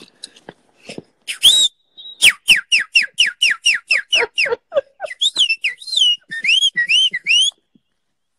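A person whistling bird-style, like a nightingale: after a short hiss-like burst, a fast run of about a dozen short falling high notes, roughly five a second, then a handful of rising-and-falling warbled notes.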